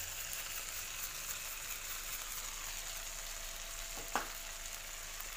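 Shrimp sizzling steadily in a hot frying pan while being dry-fried with garlic, chilli and salt. One short click sounds a little after four seconds.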